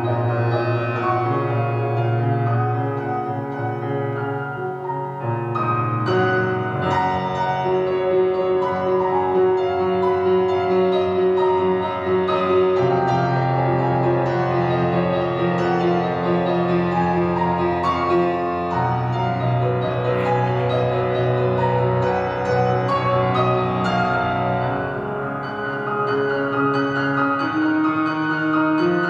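Grand piano played solo: a flowing piece with long, held bass notes under moving chords and melody.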